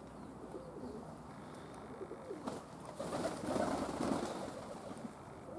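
Domestic pigeons cooing, short low calls repeating, with a louder stretch of rustling noise about three seconds in that lasts around a second.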